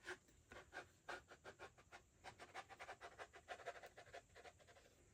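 Quick, faint puffs of breath blowing on wet acrylic paint to spread a transfer bloom, a run of short soft bursts about three or four a second.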